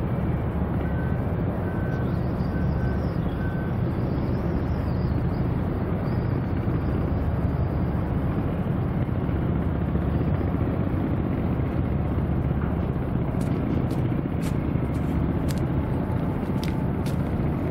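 Steady low outdoor rumble of harbourside ambience, with several sharp ticks in the last few seconds.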